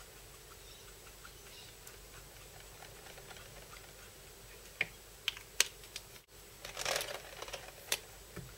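A handful of sharp plastic clicks and a brief clatter, typical of Copic marker caps being snapped off and on and markers being swapped on the desk, after a few quiet seconds.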